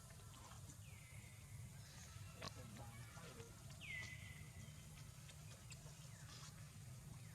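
Faint high whistled animal calls, each sliding down in pitch and then holding steady, heard twice with a fainter third near the end, over a low steady hum.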